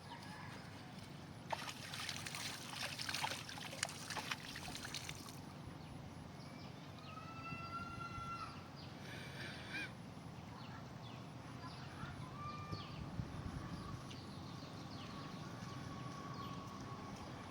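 About four seconds of noisy clatter with sharp clicks, followed by a string of short pitched waterfowl calls repeated over the rest of the stretch.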